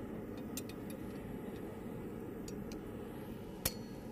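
A steady background rumble with a few light metallic clicks, then a single sharp hammer strike on metal about three and a half seconds in, ringing briefly.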